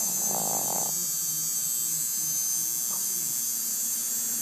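Low, wavering snoring that breaks off now and then, under a steady high-pitched hiss that is the loudest thing throughout.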